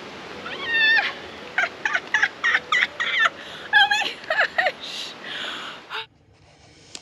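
A woman's excited wordless whoops and squeals of celebration: a quick run of warbling, pitch-bending cries over about four seconds, followed by a short rush of noise. The sound cuts off abruptly about six seconds in.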